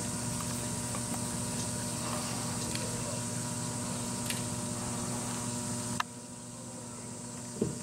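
Steady electrical hum with a high hiss and no music or speech, dropping quieter after a cut about six seconds in.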